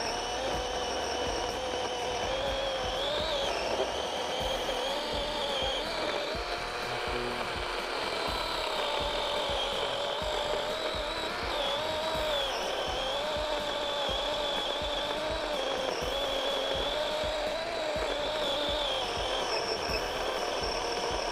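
DeWalt XR compact battery-powered chainsaw cutting through a thick log. Its electric motor whines steadily, the pitch sagging and recovering again and again as the chain loads up in the cut.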